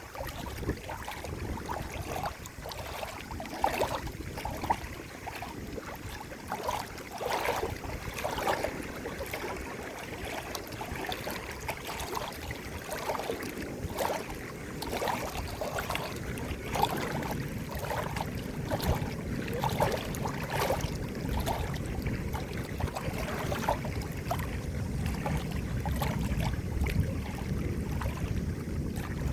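Water gurgling and lapping, with many irregular small plops and bubbles over a steady wash of flowing water; a deeper, fuller wash builds in the second half.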